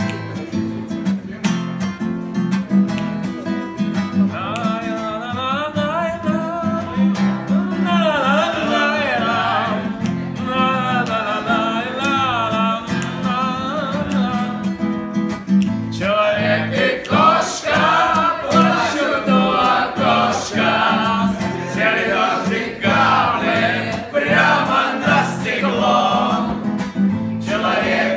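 An acoustic guitar is strummed while a man sings. About sixteen seconds in, a roomful of voices joins in and sings along in chorus over the guitar.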